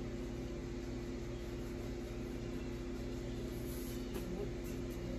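Steady low machine hum with a couple of constant low tones over a faint hiss of room noise.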